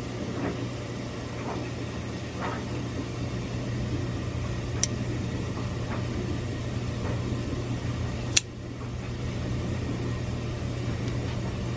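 Steady low hum with a few faint taps, and two sharp clicks, about five seconds in and again about three and a half seconds later.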